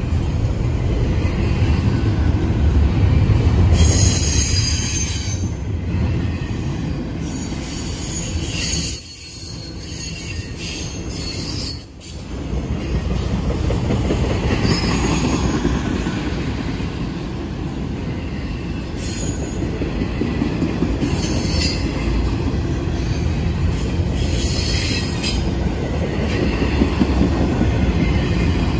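Intermodal freight train's double-stack container cars and trailer cars rolling past close by: a steady low rumble of wheels on rail, broken every few seconds by short bouts of high-pitched wheel squeal.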